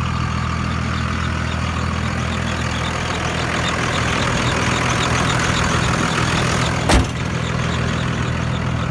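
Cummins 24-valve H.O. 5.9-litre inline-six turbo diesel idling steadily, with a belt squeal from a worn serpentine belt tensioner that still needs replacing. A single sharp click about seven seconds in.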